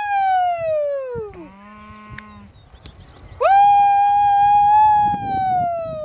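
A person's long, high-pitched cattle call, drawn out on one note and dropping in pitch at the end, heard twice: the first call falls away about a second and a half in, the second starts past the halfway point. Between the calls a shorter, lower steady tone sounds for about a second.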